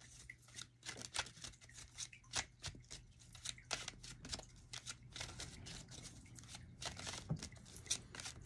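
Deck of oracle cards being shuffled by hand, overhand: a run of quick, irregular soft card slaps and rustles.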